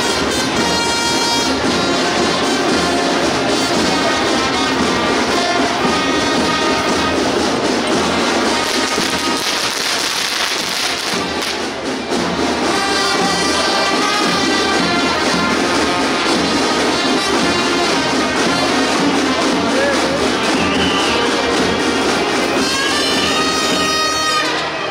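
A marching band playing: brass instruments carry a tune over snare drums.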